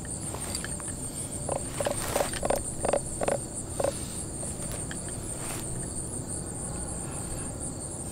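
Insects trilling steadily at a high pitch with an even pulse. A quick run of about seven short dull knocks stands out from about a second and a half to four seconds in.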